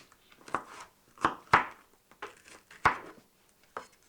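Kitchen knife chopping vegetables on a cutting board: about seven uneven knife strokes, some in quick pairs.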